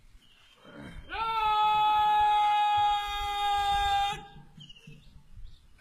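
A parade commander's long drawn-out shouted word of command, one held note that rises slightly as it starts about a second in and lasts about three seconds.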